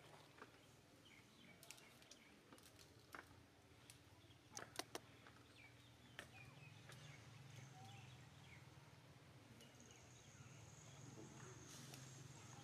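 Near silence: faint outdoor ambience with a few soft clicks, three of them close together about five seconds in. Near the end a faint, steady, high insect drone sets in.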